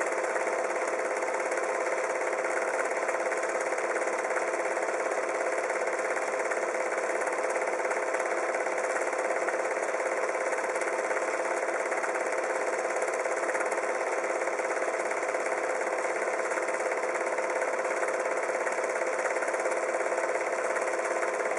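Steady mechanical running noise with a constant hum, unchanging throughout.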